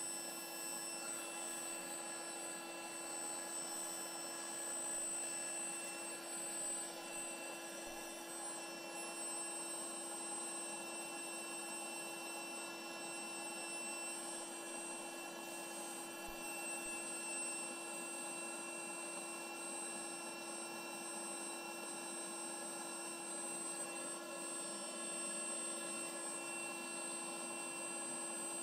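Einhell Pressito PXC cordless hybrid compressor running steadily in its high-volume inflation mode, a constant motor hum with a whine above it, filling a latex balloon through the wide hose.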